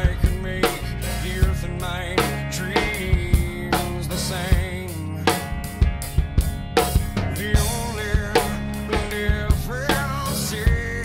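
Rock drum kit played to a steady beat (kick drum, snare with rimshots, and cymbals), along with a recorded rock song whose sustained guitar and vocal lines run underneath.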